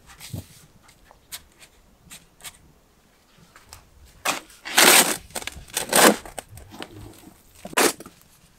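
Soil and compost being dug and tipped with a spade: a few faint clicks, then four rough, crunching scrapes in the second half, the two in the middle the loudest.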